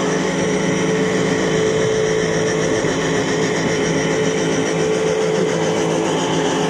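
RC burnout car's motor held flat out at a steady pitch, its tyres spinning in a burnout with a hiss over the whine.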